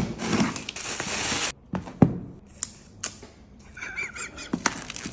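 Phone packaging being handled: a loud tearing, crinkling rustle that stops suddenly about a second and a half in, followed by scattered knocks and clicks of the box being handled, with a short wavering tone about four seconds in.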